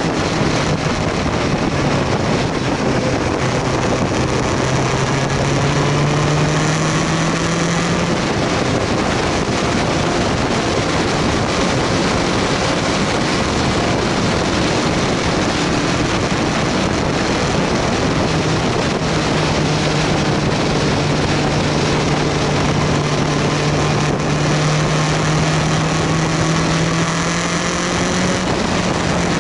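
BMW S1000R's inline-four engine running at road speed, buried under steady wind rush on the microphone. The engine note climbs through the first several seconds, fades back into the wind, then returns and rises slowly again about two-thirds of the way through.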